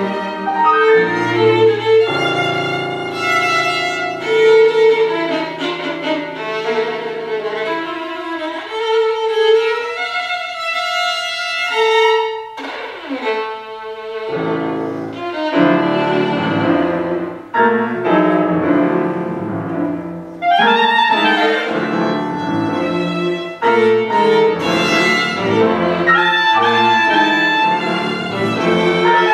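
Live chamber quartet of violin, clarinet, cello and piano playing a tango-based contemporary piece, with a downward slide about halfway through.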